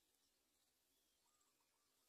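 Near silence: faint background hiss, with a very faint wavering tone in the second half.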